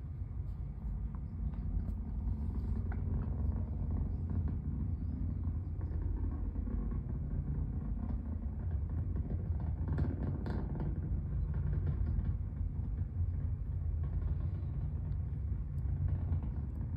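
Falcon 9 first stage's nine Merlin engines heard as a steady low rumble during ascent.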